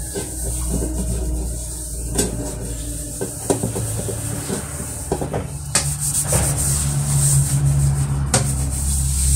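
A soapy sponge scrubbing a stainless-steel bowl at a metal sink: steady rubbing with a few sharp knocks of metal, over a steady low hum.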